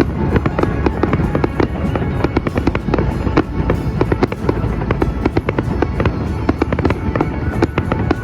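Fireworks going off in a rapid, unbroken barrage of bangs and crackles, several a second, with music playing along.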